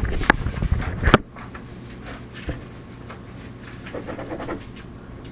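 Loud rumbling bumps and knocks for about a second, ending in a sharp knock, then quiet room tone with a steady low hum and a little faint shuffling.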